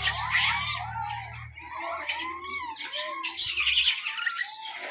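A feeding troop of rhesus macaques calling: many overlapping high squeaks, short arching squeals and chirps, one over another throughout.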